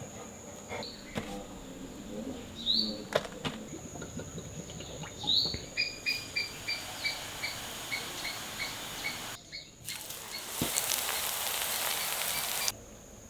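A bird's short, high repeated calls, about three a second, after two rising chirps, over a steady high-pitched insect drone. Near the end a loud steady hiss comes in for a couple of seconds and cuts off abruptly.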